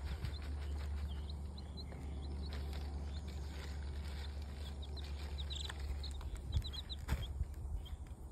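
Black Sex Link chicks peeping in scattered clusters of short, high chirps while pecking feed from plastic trough feeders, with light tapping and a couple of louder knocks about two-thirds of the way in. A steady low rumble lies underneath.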